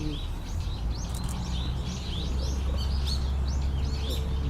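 Small birds chirping: a continuous run of short, high chirps, about three a second. Under them runs a steady low rumble that grows stronger about a second in.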